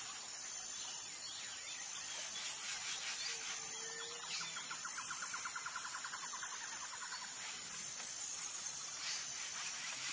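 Forest ambience: a steady high insect buzz, with bird calls, including a fast run of repeated notes lasting about three seconds midway.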